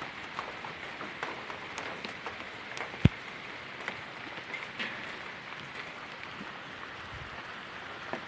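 Steady background hiss with scattered light ticks, and one sharp click about three seconds in.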